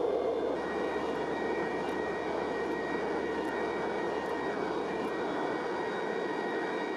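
Hydraulic forging press running with a steady drone and a thin high whine as it squeezes a hot Damascus billet.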